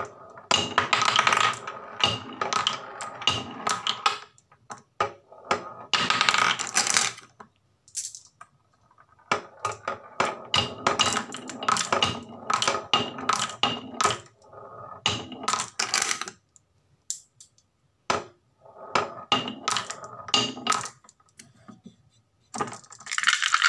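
Marbles rolling down a wooden marble-run chute and dropping into a wooden tray, clacking against the wood and against each other as they pile up. The rattles and ringing clicks come in bursts with short pauses between them.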